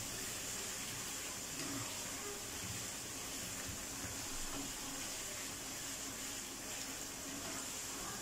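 Chicken and tomato masala sizzling softly in a non-stick karahi while a spatula stirs it: a steady hiss with a few faint scrapes.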